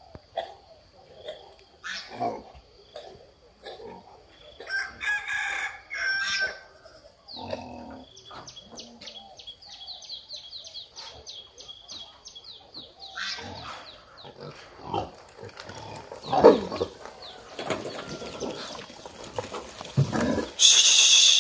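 A herd of wild boar with striped piglets grunting and squealing as they move about, mixed with other farmyard animal calls. A run of quick high chirps comes a third of the way in, and a loud shrill call comes at the very end.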